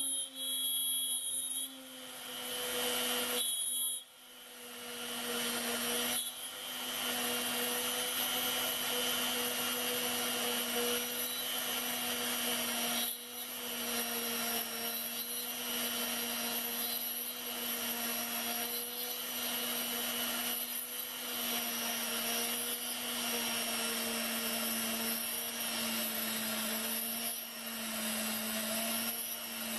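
HILDA 400-watt rotary tool running a small HSS drill bit into a brass part: a steady motor whine with the sound of the bit cutting. The sound falls off briefly about four seconds in and again about thirteen seconds in, as the feed eases.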